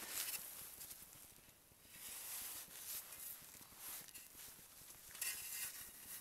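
Snow being worked with a shovel in a snow pit: soft crunches and rustles, then a short rough scrape of the blade against the snow about five seconds in.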